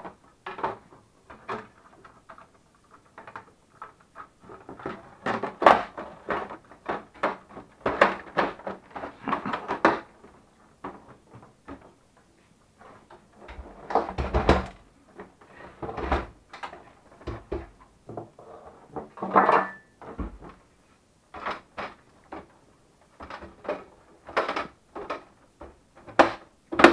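Hard plastic housing parts of a Melitta Barista TS Smart coffee machine being handled and fitted by hand: an irregular run of clicks, knocks and scrapes, with a few heavier thumps around the middle.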